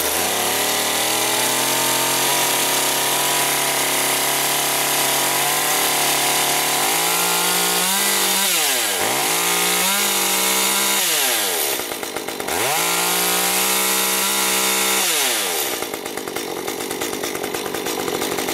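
Stihl MS 193 T two-stroke top-handle chainsaw firing up and running at a steady fast idle on its start setting. From about seven seconds in, the engine speed rises and falls several times as the throttle is worked.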